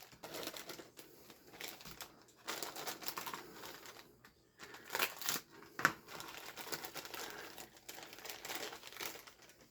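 Plastic bags of model-kit parts crinkling and rustling as they are handled, with a few light clicks of the plastic parts.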